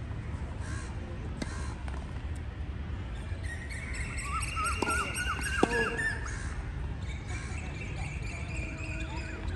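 Birds chirping and squawking in a burst of short calls a few seconds in, then one longer steady call, over a low steady rumble of outdoor background noise. A few sharp knocks come through, the loudest about halfway through.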